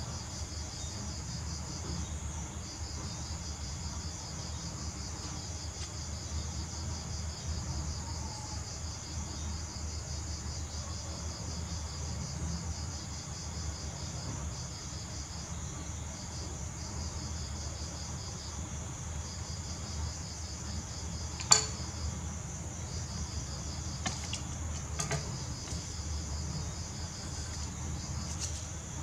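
An insect trilling steadily in long pulsed runs with short breaks, over a low steady hum. A single sharp tap about three quarters of the way through, with a few fainter ticks after it.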